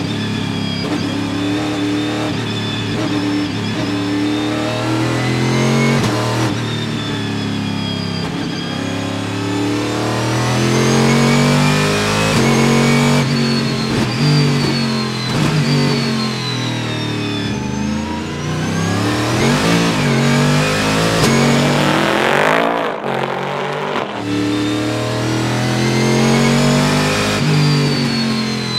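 Panoz Esperante GTR-1's 6-litre V8 race engine heard from inside the cockpit, pulling hard with its pitch climbing and breaking off at several quick upshifts. About three quarters of the way through the engine eases off and drops in pitch, then pulls up through the gears again.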